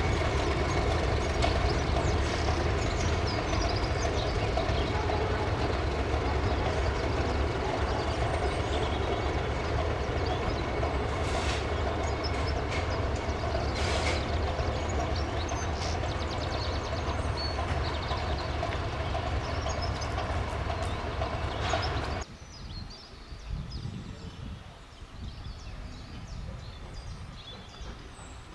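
Class 31 diesel locomotive's English Electric V12 engine running with a steady drone and a thin high whine, with a couple of brief clanks partway through. The engine sound cuts off abruptly about 22 seconds in, leaving quiet outdoor background.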